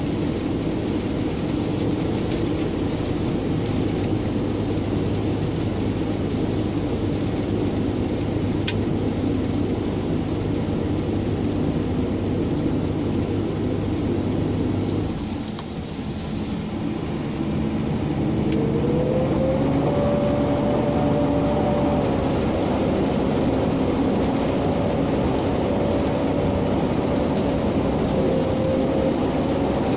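Scania G460 truck's 13-litre straight-six diesel running under way, heard from inside the cab with road noise. Halfway through the drone dips briefly, then a whine rises and holds steady as the engine pulls again.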